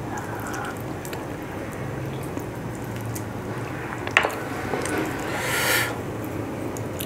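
Broth trickling from a spoon onto rice, then fingers pulling at soft boiled pork: a light tap about four seconds in and a short wet squish about five and a half seconds in.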